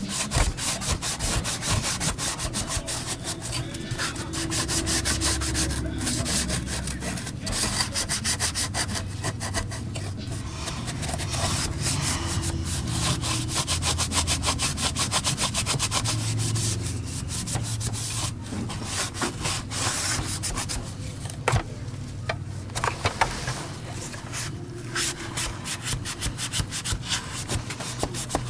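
Quick, steady hand scraping or scrubbing strokes, many a second, on a part of a vacuum power brush being cleaned, with a couple of sharper knocks about two-thirds of the way through.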